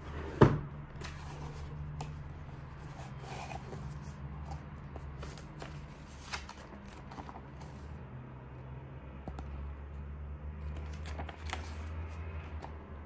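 A PC fan's retail packaging being handled and opened: a sharp knock about half a second in, then scattered rustles, scrapes and clicks.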